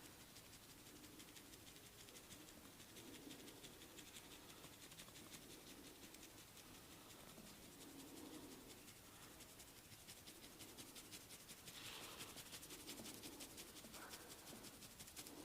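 Faint rubbing and scratching of a barber's hands massaging skin and hair, with soft strokes every second or two and a run of fine rapid scratchy ticks.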